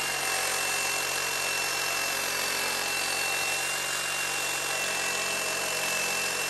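Cordless reciprocating saw cutting through metal, running at a steady speed with a thin, high, steady whine.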